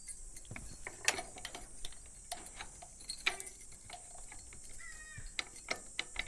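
Keys jingling and a padlock clicking and rattling against the metal latch of a wire-mesh enclosure door as it is being unlocked: a run of small, irregular metal clicks.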